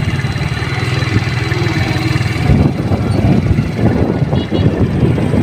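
An engine running steadily, a loud low rumble with no change in pitch.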